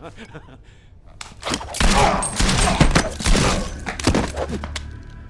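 A rapid volley of gunshots, many shots over about three seconds starting a little over a second in, mixed with a man yelling.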